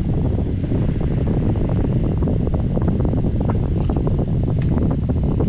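Honeywell HT-900 TurboForce air circulator fan running steadily, set to speed 1, its airflow buffeting the microphone as a loud, steady rumble of wind.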